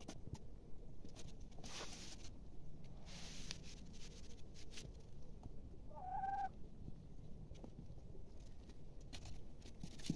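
A chicken gives one short call, about half a second long, roughly six seconds in. Two brief rustling noises come at about two and three seconds in, over a faint low background rumble.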